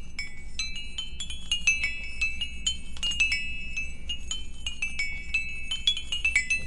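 Bright tinkling melody of short, quick bell-like notes, as from a glockenspiel or music box, over a faint low hum.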